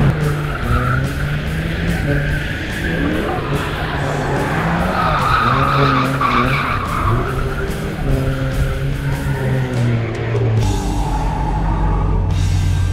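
Turbocharged Ford AU Falcon ute drifting: the engine revs up and down with tyres screeching as the rear wheels spin, under a music track with a steady beat. Near the end it settles to a steadier, lower engine note.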